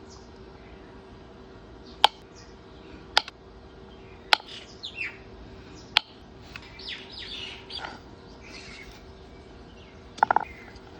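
Birds chirping in short calls, with several sharp, isolated clicks spread through and a quick cluster of them near the end.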